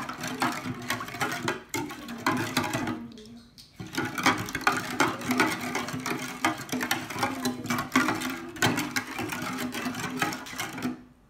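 Spoon stirring drink powder into water in a metal mess tin, scraping and clinking rapidly against the sides and bottom, with a short pause about three seconds in.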